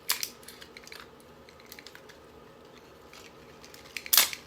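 Scattered sharp clicks and snaps of small electronic and plastic parts being handled and pulled apart inside a gutted boombox: one snap right at the start, a few light ticks after it, and the loudest snap near the end.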